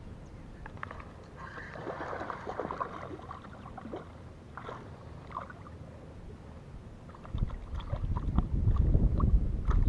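Water splashing and lapping around a kayak, with scattered small clicks and knocks. About seven seconds in, wind starts buffeting the microphone with a loud low rumble.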